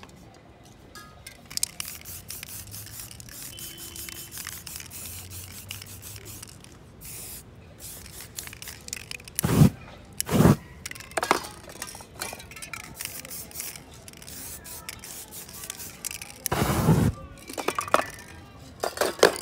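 Aerosol spray-paint cans hissing in short bursts, with stencils scraping against the board between them; two loud sprays come about halfway through. Near the end a longer spray is set alight by a lighter, throwing a short flame across the painting.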